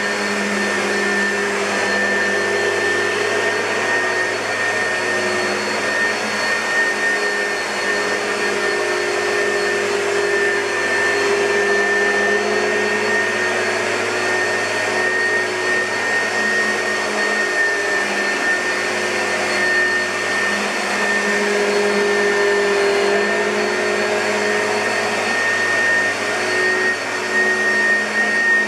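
2006 Oreck XL2 bagged upright vacuum cleaner running steadily, its motor giving a constant high whine.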